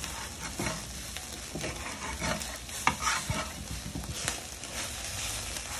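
Eggs frying in a stainless steel pan with a steady sizzle, while a metal spoon stirs and scrapes them, its strokes knocking against the pan about once a second.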